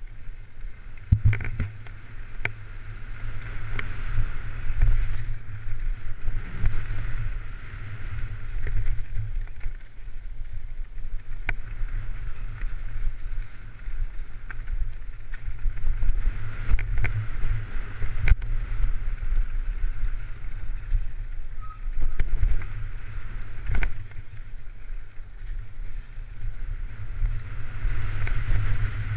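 Wind buffeting and rumbling on an action camera's microphone during a fast ride over rough ground, with scattered knocks and rattles from the bumps.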